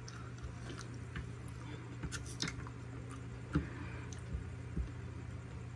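Scattered faint clicks and soft wet mouth sounds of eating: wooden chopsticks tapping as a siomai dumpling is picked up, and chewing, over a steady low hum.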